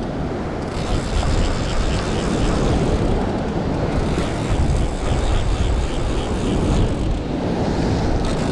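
Wind buffeting the microphone over surf breaking on the rocks, a steady rumbling noise without a break.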